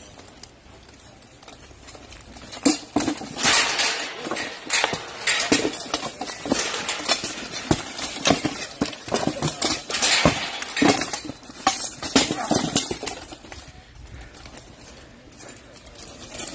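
Steel plate armour clanking and rattling as two armoured fighters strike and grapple, with repeated sharp knocks of weapons hitting armour and a shield. The clashing starts about three seconds in and eases off near the end.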